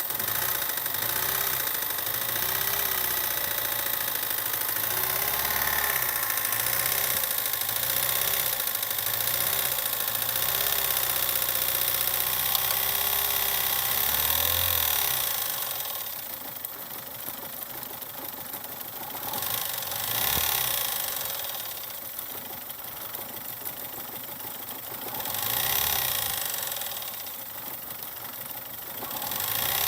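Opel Z14XEP 1.4-litre four-cylinder petrol engine running with a knock from the first cylinder's piston, which the owner takes for the death of the engine. The engine speed rises and falls repeatedly; it runs louder for the first half, then settles quieter with a few swells near the end.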